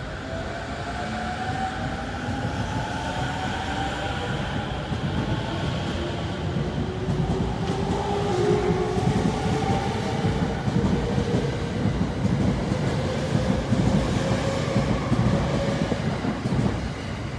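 JR East E231-500 series electric train accelerating away from a station stop: the whine of its VVVF inverter-driven traction motors rises steadily in pitch as the train gathers speed. Underneath, the rumble of the wheels on the rails grows louder.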